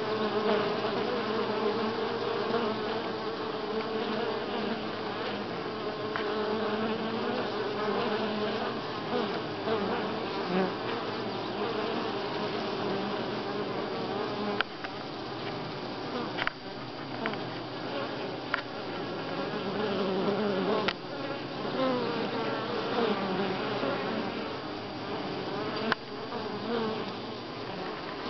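Honey bees buzzing at a wooden hive entrance, a steady hum whose pitch wavers as bees fly in and out close by. A few sharp clicks in the second half.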